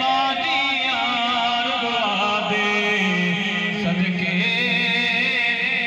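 A man's voice chanting a Saraiki naat into a microphone, the melody bending between notes and then settling into a long held low note about halfway through.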